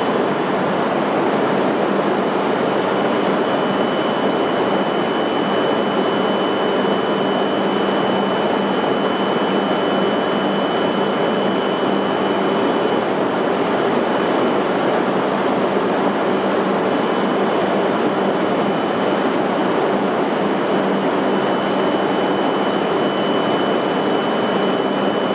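Steady, loud mechanical drone with a thin high whine running over it, unchanging throughout.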